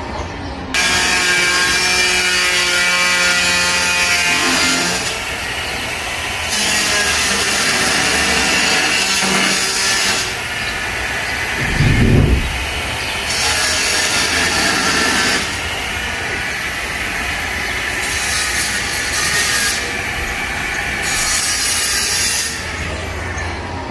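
Makita marble saw (handheld masonry cutter) running with a whining blade, alternating between louder and quieter stretches every few seconds. A low thud stands out about halfway through.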